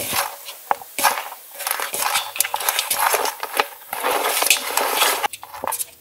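Hands mixing spice-coated raw quails in a large stainless steel bowl: irregular squishing and rubbing of the meat, with many quick knocks and clinks against the bowl's metal.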